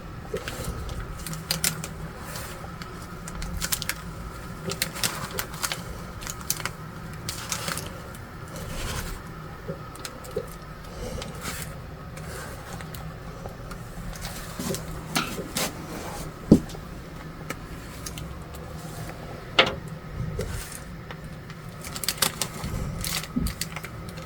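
Irregular light clicks and taps, with a few sharper knocks, over a faint steady hum.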